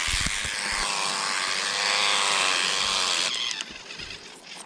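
Small battery-powered electric callus remover (foot file) running, its motorised roller used as a fishing reel to wind in the line with a hooked perch on it. The motor runs steadily and stops about three seconds in.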